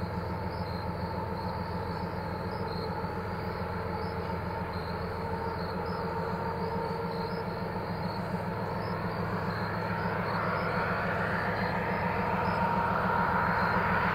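Freight train's diesel locomotives approaching, a steady engine rumble getting louder over the last few seconds.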